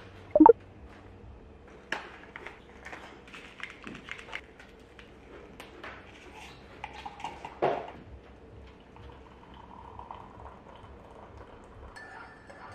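Scattered light clinks and knocks of tableware being handled, with one louder clatter about two-thirds of the way through.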